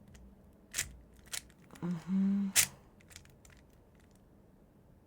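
A few sharp plastic clicks from a MoYu RS3M 2020 speedcube with its springs removed as its layers are turned, the loudest about two and a half seconds in. Just before it comes a short wordless vocal sound.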